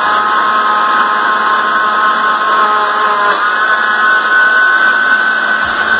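Countertop blender motor running, chopping diced carrot in oil. Its whine steps up a little in pitch about three seconds in.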